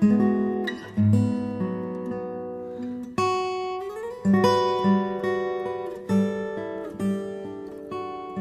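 Background music on acoustic guitar: chords and notes plucked one after another, each ringing and fading before the next.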